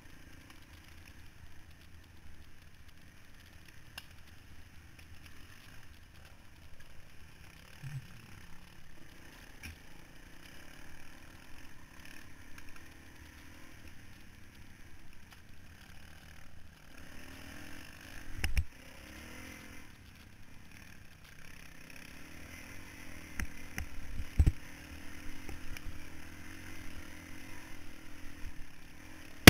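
Single-cylinder four-stroke dirt bike engine running as the bike rides over rough ground, recorded onboard, with chassis clatter. A few hard knocks come as it hits bumps, the loudest about two-thirds of the way through.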